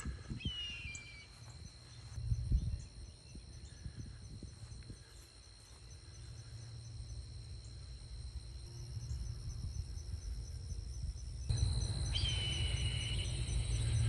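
Red-tailed hawk screaming overhead: a short falling call near the start and a longer, louder scream about twelve seconds in. Insects keep up a steady high drone throughout, and a brief low rumble comes about two and a half seconds in.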